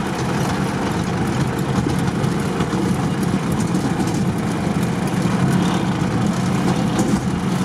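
Off-road vehicle's engine running steadily under way, with drivetrain and road noise, heard from inside the cab.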